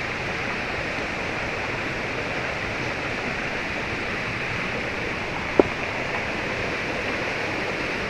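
Steady rushing of a mountain stream, with one brief sharp click about five and a half seconds in.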